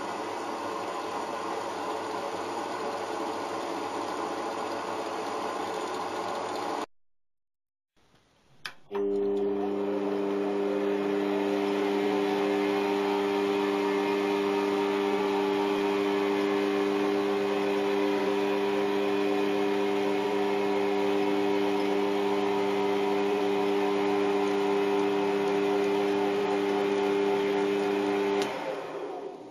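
A small horizontal band saw cutting a POM plastic rod, a steady rasping run. After a brief break, a lathe-mill combination's spindle spins up, rising in pitch, and runs steadily with a strong hum, turning the POM stock against a drill chuck in the tailstock, then stops near the end.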